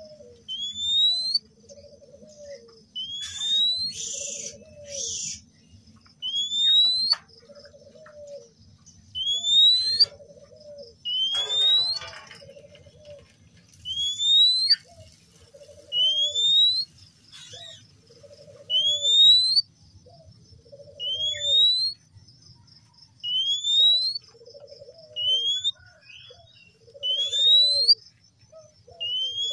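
Male Oriental magpie-robin (kacer) singing: a rising whistle repeated about every two seconds, each paired with a lower chattering note, over a faint steady high-pitched whine.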